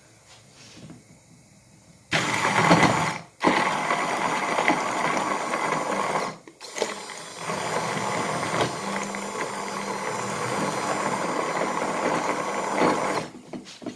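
Electric blender motor running, beating an egg-white and oat-flake omelette batter: switched on about two seconds in, with a brief stop and a short dip, then cut off just before the end.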